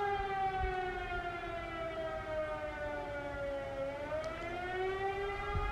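Civil-defence siren wailing during the annual public siren test, its pitch slowly falling and then rising again about four seconds in.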